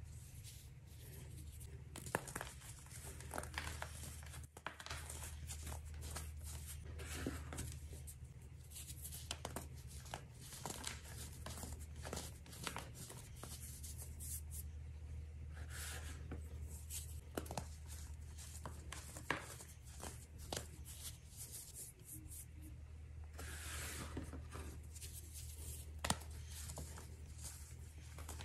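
Pressed baking soda being crushed and crumbled between fingers: a dense run of dry, irregular crunches and crackles, with a few sharper snaps standing out.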